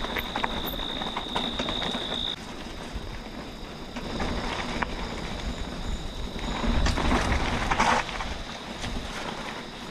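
Mountain bike rolling over a rough, slippery dirt trail: tyre noise with rattling and knocks from the bike, louder for a moment about seven seconds in. A thin steady high whine stops about two seconds in.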